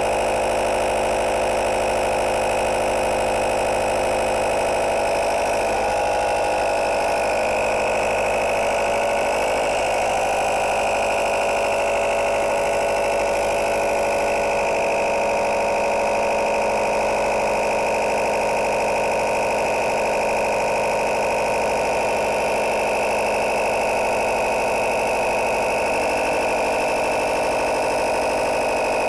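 Portable 12-volt tyre-inflator air compressor running steadily, its small motor and piston pump making a constant, vibrating hum while it pumps air into a bike tyre.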